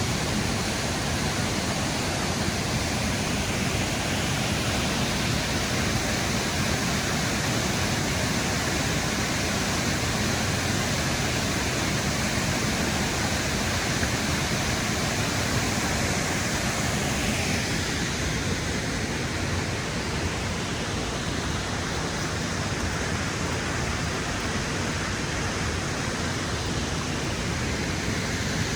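Waterfall pouring steadily: an unbroken rush of falling water.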